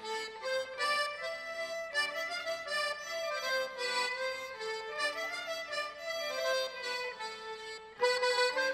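Traditional Normandy folk dance tune played live on a button accordion and two fiddles, a quick run of melody notes that grows louder near the end.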